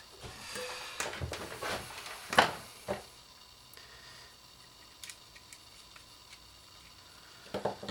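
A few light clicks and knocks of small parts and tools being handled on a workbench, the strongest about two and a half seconds in, then only faint room hiss with the odd tiny tick.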